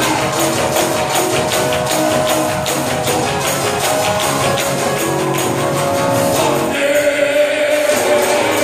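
Live gospel worship music with singing and a tambourine keeping a steady beat.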